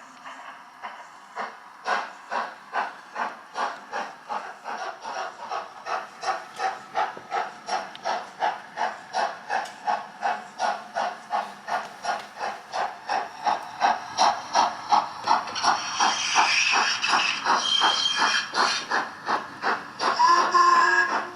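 Doehler & Haass model-locomotive sound decoder playing a Locoman LMS Black 5 steam sound file: steady exhaust chuffs, about two to three a second and quickening slightly as the engine runs. A steam hiss swells in about two-thirds through, with a brief tone near the end.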